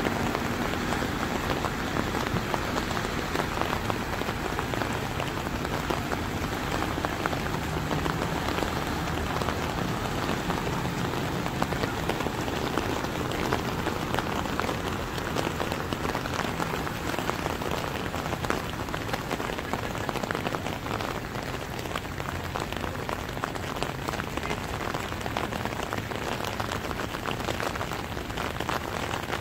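Heavy rain in a steady downpour, countless drops hitting flood water and the ground close by.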